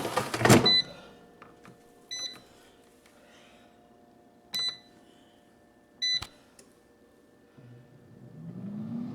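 Air fryer being started: a clatter as the chicken goes in, then four short beeps from its control panel as it is set, and about eight seconds in its fan spinning up with a rising whine and a growing rush of air.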